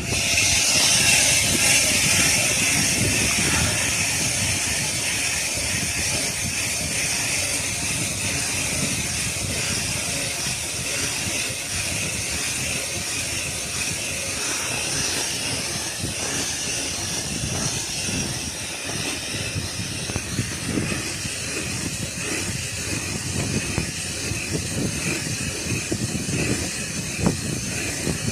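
Electric ice auger running steadily, drilling a hole through ice.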